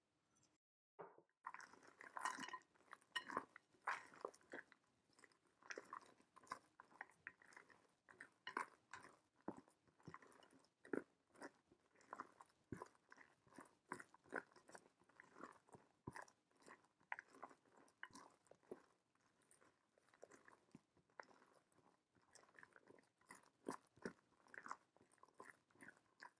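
Spatula folding strawberries and chopped walnuts into whipped cream in a glass bowl: faint, irregular squishing and scraping strokes, several a second, with a short pause about a second in.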